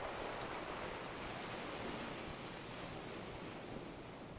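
Steady rushing noise that slowly grows fainter, with no distinct strokes or tones.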